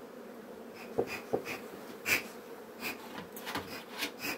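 Bee smoker's bellows puffing repeatedly in short hissing bursts, starting about a second in with a couple of knocks. Under it is the steady hum of Buckfast honeybees from the open hive.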